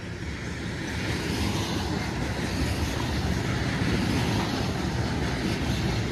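Freight cars of a CSX freight train rolling past, a steady rumble and rush of wheels on rail that grows louder.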